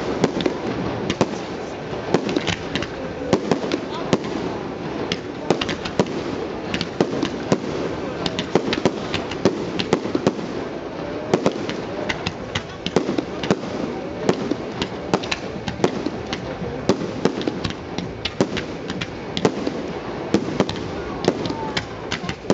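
Fireworks display: a fast, irregular run of bangs and pops, several a second and without a break, over a steady murmur.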